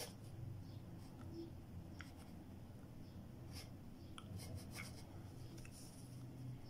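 Wooden pencil sketching on paper: faint, short scratching strokes.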